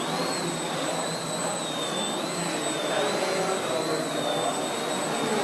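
Electric motors and propellers of a quadcopter/flying-wing hybrid running at hover. A high whine wavers slightly in pitch over a steady rush of propeller noise.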